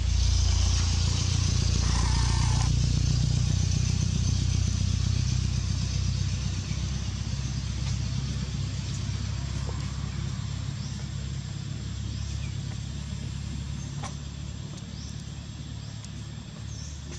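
A motor vehicle's engine rumbling, loudest in the first few seconds and then slowly fading as it moves away.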